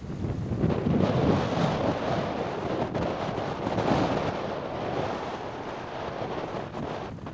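Wind buffeting the microphone over the rushing wash of waves, swelling and easing.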